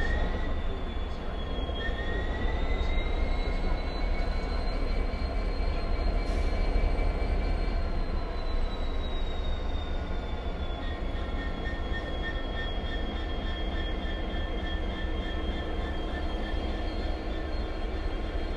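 Class 66 diesel locomotive's two-stroke V12 engine running steadily just after start-up: a deep low rumble under a high whine that climbs in pitch over the first few seconds, then eases slightly lower and settles.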